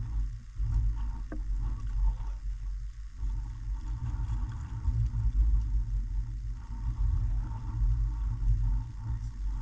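Wind buffeting the microphone: a gusty low rumble that swells and drops, with a faint click about a second in.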